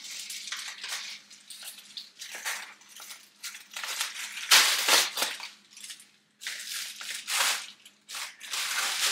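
Packaging being handled and opened, crinkling and rustling in irregular bursts, loudest about halfway through.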